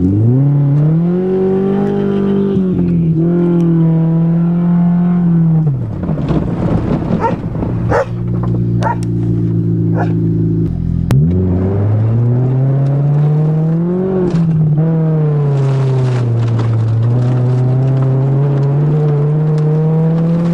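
1990 Honda Civic's 16-valve throttle-body fuel-injected four-cylinder engine heard from inside the cabin, pulling away and revving up through the gears. Its pitch climbs, drops at a shift, and climbs again several times. A steadier low stretch in the middle carries scattered clicks and knocks.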